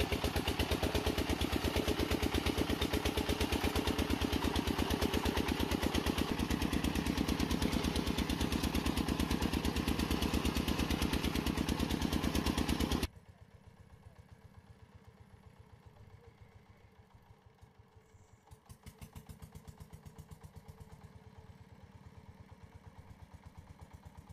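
Walk-behind tractor's diesel engine chugging steadily and loud with a fast, even beat, then cut off suddenly about halfway through, replaced by a much fainter engine chugging that swells a little near the end.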